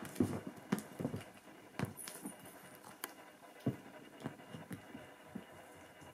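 Savannah kittens scrambling and pouncing on an upholstered couch while batting at a wand toy: irregular soft thumps and scuffs of paws on the fabric, a few each second.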